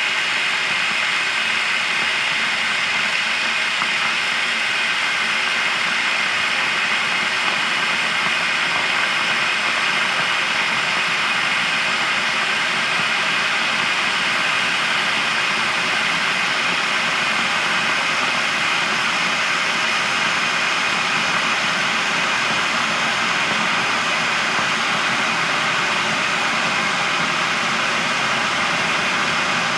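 Electric kettle boiling, heard close up: a steady rushing, bubbling roar that holds an even level throughout.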